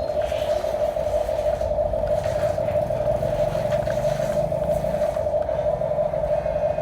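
A motor running with a steady, even hum and a low rumble underneath.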